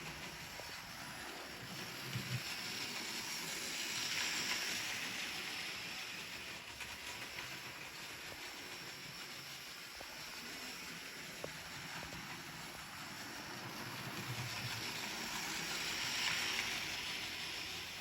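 Hornby 00 gauge Thomas the Tank Engine model locomotive running on model railway track with two coaches: a steady hiss and rumble from its small electric motor and wheels, swelling twice about twelve seconds apart as it comes round close, with a few faint clicks.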